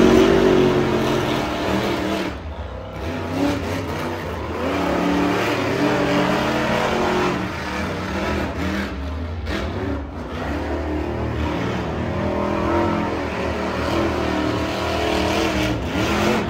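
Monster truck engines revving up and down as the trucks drive and jump on a dirt arena. The sound is thin, with no bass.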